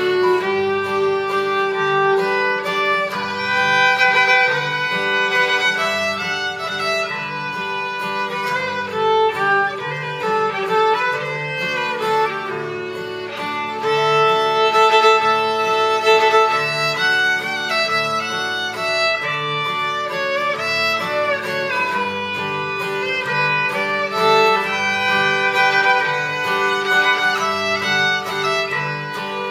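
Fiddle playing a tune, backed by acoustic guitar keeping a steady rhythm underneath.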